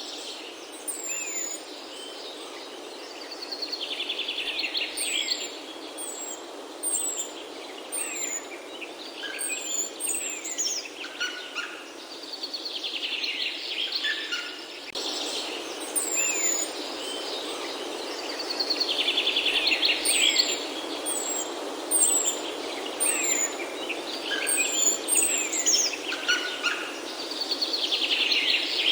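Birds singing and chirping, with short high chirps about once a second and a louder trilled phrase that comes back every several seconds, over a steady background hiss.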